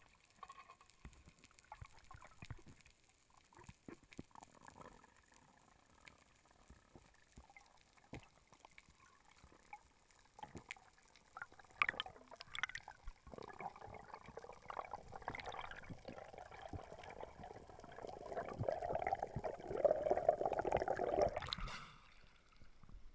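Underwater sound heard through an action-camera housing: faint scattered clicks and crackles, then a growing rush of water and bubbles as the freediver swims up, loudest near the end and cutting off sharply as the camera breaks the surface.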